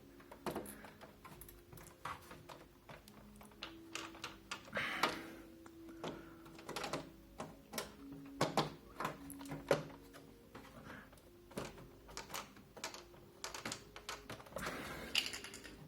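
Irregular plastic clicks, taps and knocks as the snap-in retaining clips of a Zalman Z11 Neo case's front panel are squeezed and pried, the clips sitting tight.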